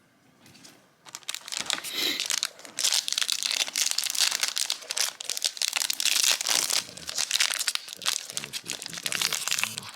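Foil trading-card booster pack being torn open and its wrapper crinkled, starting about a second in and going on in dense crackly rustles.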